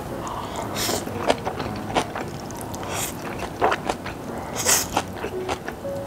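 Close-miked eating: chewing a big mouthful of Chapagetti black-bean noodles with kimchi, with three short hissy sounds, about a second, three seconds and nearly five seconds in.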